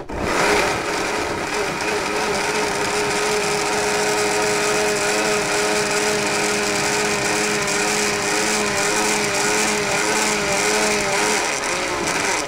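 Countertop blender running steadily, pulping soaked egg-carton pieces in water into a grey slurry; it runs about twelve seconds, then is switched off.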